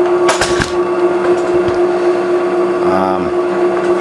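WEN 4214 variable-speed drill press running, giving a steady hum with a whine, with a few sharp knocks about half a second in.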